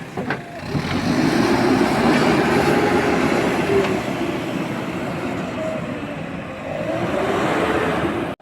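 A motor vehicle's engine running close by, its pitch wavering up and down over a steady noise; it cuts off suddenly at the end.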